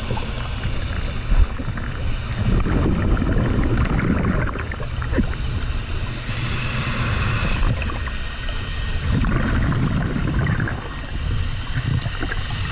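A scuba diver breathing through a regulator underwater: two long bubbling exhales with a short hissing inhale between them, over a low steady rumble. There is a single knock about a second and a half in.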